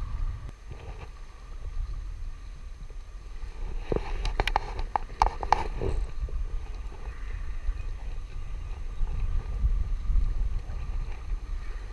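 Wind rumbling against the microphone, with a short cluster of sharp clicks and taps about four to six seconds in.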